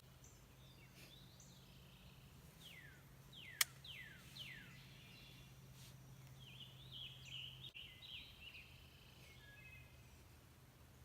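Small songbirds calling: four quick descending whistled notes, then a jumble of high twittering chirps a few seconds later. One sharp click partway through, over a faint steady low hum.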